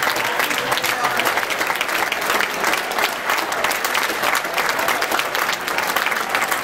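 Large audience applauding: dense, steady clapping that keeps on without a break.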